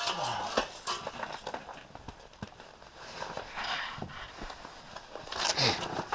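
Rustling of winter clothing with scattered knocks and clicks as people move about and handle gear, louder in two stretches in the second half.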